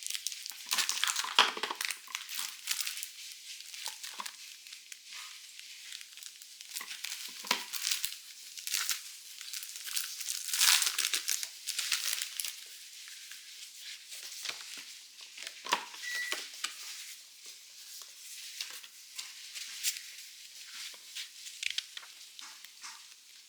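Packaging crinkling and rustling in irregular bursts as it is handled and opened, with a few sharper crackles.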